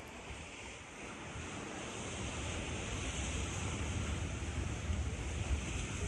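Surf washing on a beach, with wind gusting on the microphone; the sound swells steadily louder.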